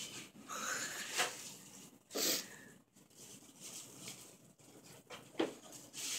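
Tissue paper rustling and crinkling in irregular bursts as a tissue-wrapped shoe is handled and pulled out of a shoebox, with a few sharper, louder crackles.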